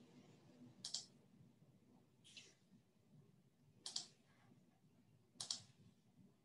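Near silence with four faint, short clicks about a second and a half apart over a low background hum.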